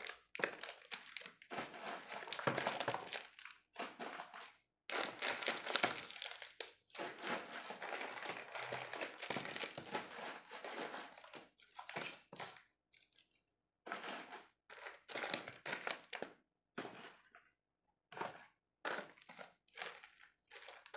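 Plastic wrappers and packaging crinkling and rustling in irregular bursts, with short silent gaps, as wrapped chocolates and gifts are handled and pressed into a suitcase.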